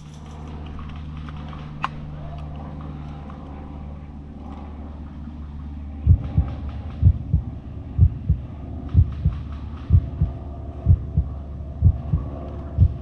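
A low steady drone, then from about six seconds in a heartbeat sound effect: paired low thuds about once a second, building tension.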